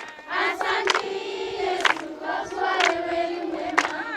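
A choir of voices singing together and holding long notes, with a sharp beat about once a second.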